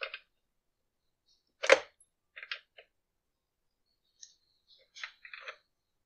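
Scattered metal clicks and taps of a wrench tightening the nuts on a concrete saw's cutter-arm cover, with one sharper clank a little under two seconds in.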